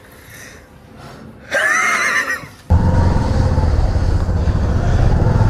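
A brief high-pitched vocal sound about a second and a half in. Then, abruptly, a Bajaj Platina's single-cylinder engine idles with a steady low rumble.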